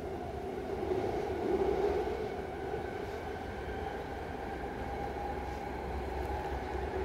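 A BART train running, heard from inside the passenger car: steady rumbling noise with a droning hum that wavers slightly in pitch and swells briefly about one and a half seconds in.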